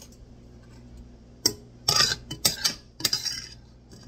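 A glass jar and a knife clinking and scraping against a stainless steel pot: one sharp clink about a second and a half in, then a quick run of knocks and short scrapes through the middle.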